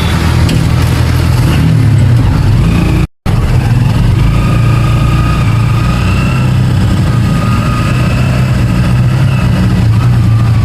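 Motor vehicle running, a steady low engine hum. It cuts out abruptly for a moment about three seconds in.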